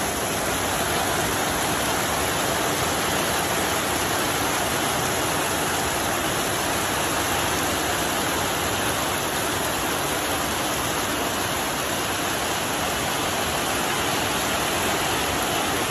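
Heavy rain pouring down, a loud, steady hiss.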